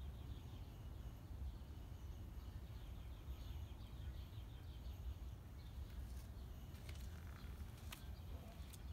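Faint outdoor ambience: a steady low rumble with distant birds chirping in quick runs of short high notes during the first few seconds, and two or three sharp clicks near the end.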